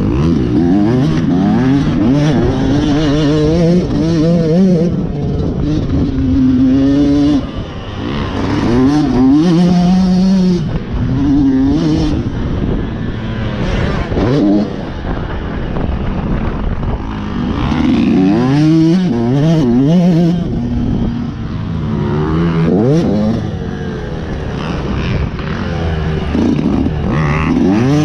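Yamaha motocross bike engine revving hard on a dirt track, its pitch rising and falling again and again as the throttle opens and closes, with a short easing-off about seven seconds in.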